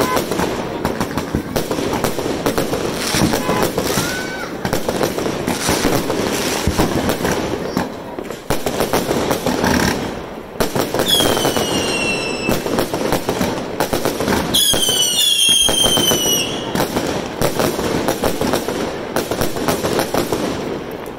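Aerial fireworks going off in quick succession: continuous popping and crackling of bursting shells, with two whistles falling in pitch a little past halfway.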